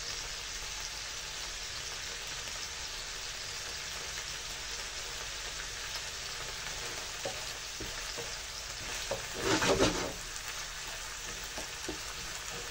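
Bacon lardons and sliced onions sizzling steadily in a non-stick frying pan, stirred with a wooden spatula, with one louder burst of stirring noise about nine and a half seconds in.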